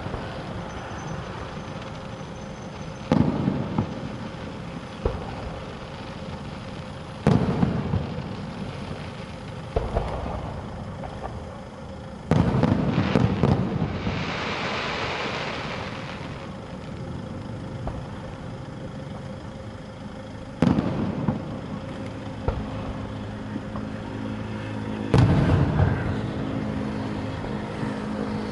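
Fireworks bursting overhead: about six loud bangs a few seconds apart, with a hissing crackle lasting about two seconds in the middle.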